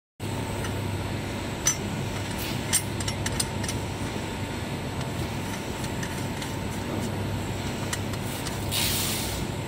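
A few light metallic clicks and taps as a mesh filter lid is handled on the rim of a stainless steel material cylinder, over a steady background hum; a short scraping hiss near the end.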